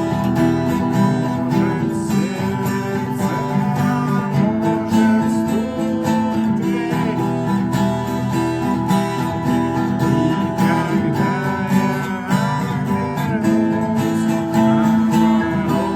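Acoustic guitar strummed in a steady rhythm, chords punctuated by regular percussive strokes in the muted-hit "стук" strumming technique.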